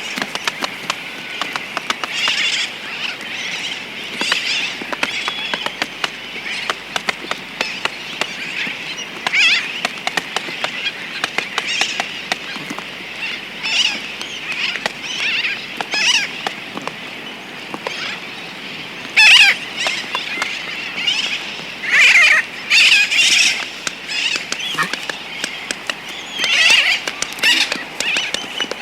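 A Laysan albatross making rapid clicking sounds close up, while sooty terns give loud repeated flight calls nearby and a tern colony calls continuously in the distance. The tern calls are loudest about two-thirds of the way in and again near the end.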